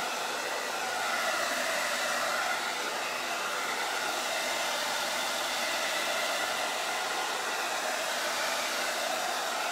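Handheld hair dryer running steadily: a constant rush of air with a faint motor whine, blowing over freshly applied chalk paste on a stencil transfer to dry it.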